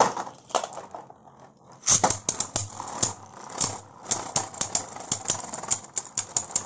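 Beyblade Burst spinning tops clashing in a plastic stadium: a sharp rattle as one is launched, then from about two seconds in a rapid run of clacks, several a second, as the two tops strike each other and the stadium wall.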